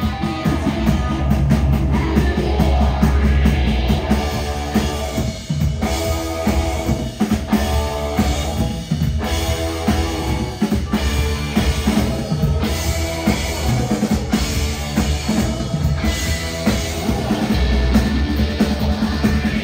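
A live band playing, the drum kit prominent with repeated kick and snare hits over a heavy low end.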